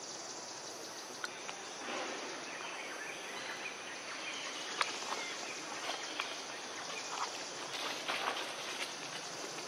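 Forest ambience: a steady hiss of background noise with scattered short chirps and a few sharp clicks.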